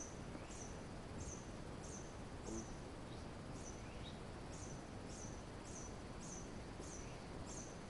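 Hermit hummingbird singing: a short, high, slightly falling squeak repeated steadily about twice a second, over a faint steady hiss of jungle background.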